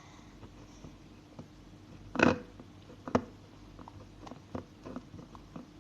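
Light taps and clicks of Play-Doh toys being handled, with a louder knock about two seconds in and a sharp click about a second later.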